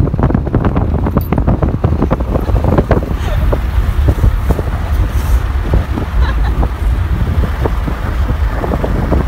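Wind rushing through an open car window at road speed, buffeting the microphone in a loud, deep rumble with constant irregular flutters.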